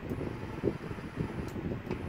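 MR-DS16 electric tapping machine running: a low, uneven rumble with a faint high whine and a few light clicks.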